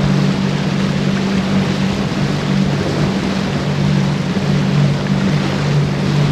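Boat's outboard motor running steadily under throttle as the boat gets under way, a low hum over a constant rush of wind and water.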